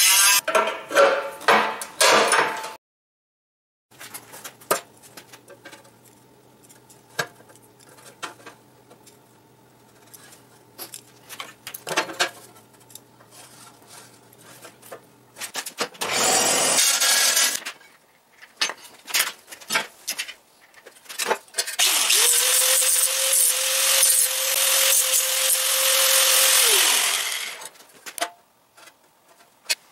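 Angle grinder grinding into the corroded steel wall of an air compressor tank, working back the rusted, thin metal. It runs in loud bursts: one at the start, a short one about halfway through, and a longer steady run of about five seconds whose pitch falls away as it is switched off and spins down. Light taps and handling noises come in between.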